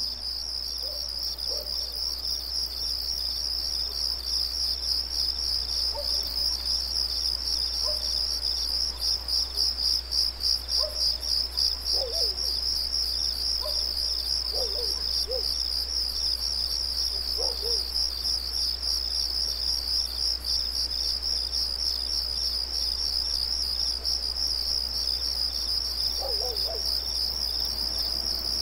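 Insects trilling in a continuous, high, rapidly pulsing chorus, with a few faint, short, lower-pitched calls here and there.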